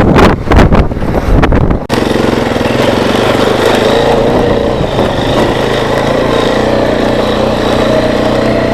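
Strong wind buffeting the microphone. About two seconds in, it gives way abruptly to a vehicle engine running steadily.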